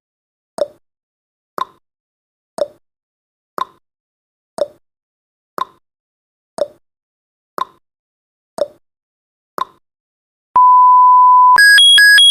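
Countdown timer sound effect: a clock ticks once a second, alternating a lower tick and a higher tock, ten times. A steady beep then sounds for about a second as the countdown reaches zero. It is followed by a loud, fast alarm alternating between two high beeps.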